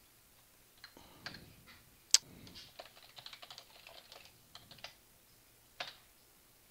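Typing on a computer keyboard: a run of irregular key clicks, starting about a second in and stopping about a second before the end.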